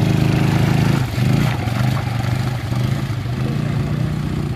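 ATV (quad bike) engine running as it drives through mud. The engine note dips briefly about a second in, picks up again, then runs a little quieter as the ATV pulls away.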